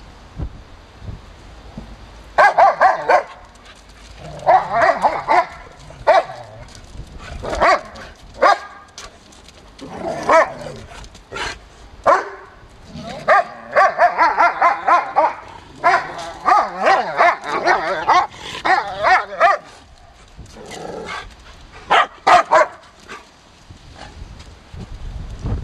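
Bouvier des Flandres dogs barking excitedly in repeated bursts of quick barks, with a few short gaps.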